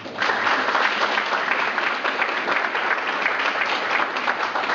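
Audience applauding: many hands clapping in a dense, steady patter that starts suddenly, welcoming a guest introduced to the room.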